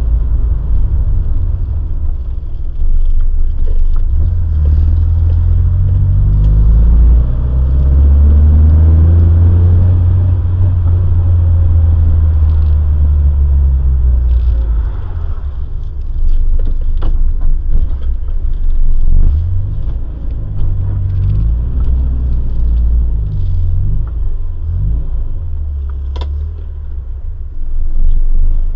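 A Morris Minor Traveller's four-cylinder A-series engine and road noise, heard from inside the car while it is driven. The engine note rises as the car speeds up and holds steady for several seconds. About halfway through it falls away, and the revs then rise and fall as the car slows and manoeuvres, with a few clicks near the end.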